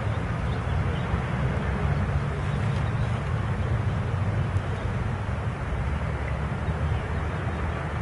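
Steady outdoor background noise: a continuous low rumble with an even hiss over it, no distinct events.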